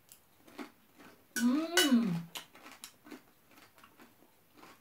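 Scattered small clicks and crunches of scorched rice being eaten from a spoon, with one drawn-out 'mmm' of enjoyment about a second and a half in, rising then falling in pitch.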